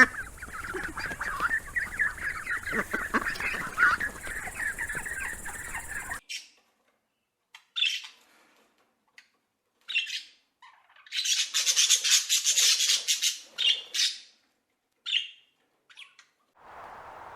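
Birds calling: a flock's dense, overlapping calls cut off abruptly after about six seconds. Then comes a bird squawking in short, separate calls, with one longer harsh call midway.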